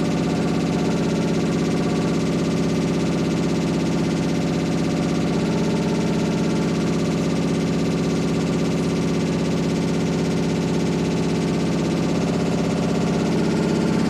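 Washing machine running with a loud, steady drone made of many held tones.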